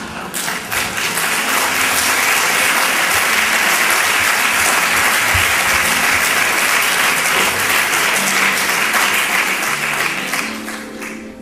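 Audience applauding: the clapping builds up within the first second, holds steady, and dies away near the end.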